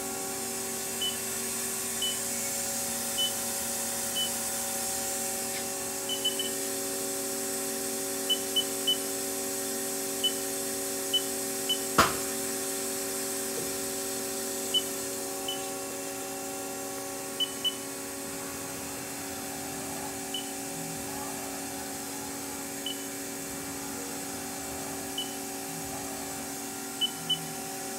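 Haas ST-10 CNC turning center running with its spindle at 500 RPM: a steady machine hum made of several constant tones. Short high-pitched chirps come at irregular intervals throughout, and one sharp knock sounds about twelve seconds in.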